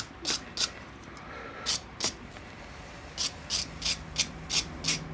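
Short rubbing strokes of something being wiped or scraped clean, a few in the first two seconds and then a steady run of about three a second, as excess material is cleaned off a repaired plasma torch handle.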